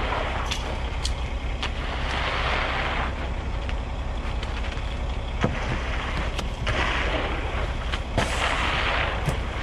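Steady low rumble of a concrete mixer truck running during a pour, with several short rushing, scraping washes of wet concrete being poured and worked into place, and a few light clicks.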